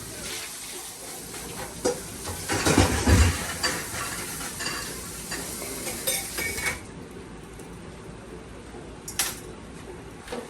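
Dishes and a metal spoon clattering and clinking as boiled macaroni is added to the milk, cheese and egg mixture and stirred in. The loudest clatter comes about two and a half to three seconds in; scattered clinks follow, then it goes quieter with a single knock near the end.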